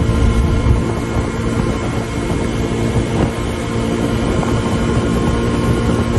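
Suzuki DR150 single-cylinder four-stroke engine running at a steady, unchanging pitch while riding, with a constant low rumble of wind and road underneath.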